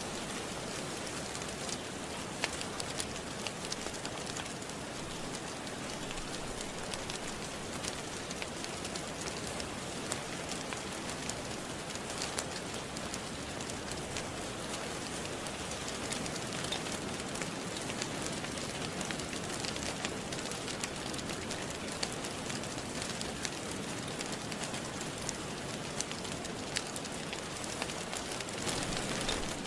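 Steady rain with a wood fire crackling over it: an even hiss of rain, scattered with many small sharp pops and crackles.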